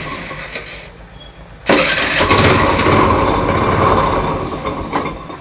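TVS Jupiter scooter's 110 cc single-cylinder four-stroke engine running, then revved a little under two seconds in for about three seconds before settling back down. It makes a lot of engine noise, which the mechanic puts down to the crank bearing and connecting rod.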